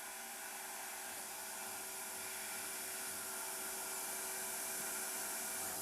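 Steady hiss of rushing air with a constant hum under it, slowly growing louder, from the CNC plasma cutter's air flow just after a cut through stainless steel.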